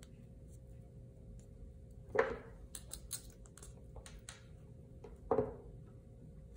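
Small clicks and taps of hand-sewing a leather handle: backstitching with two needles, with needle-nose pliers used to grip the needle. Two louder short sounds come about two and five seconds in.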